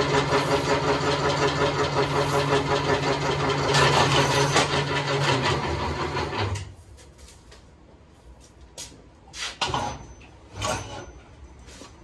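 Motor-driven homemade wire stripper, a converted metal roller/shear/brake machine, running steadily with a rapid pulsing as it pulls insulated copper wire through its rollers. It cuts off suddenly about six and a half seconds in, and a few short scraping sounds follow.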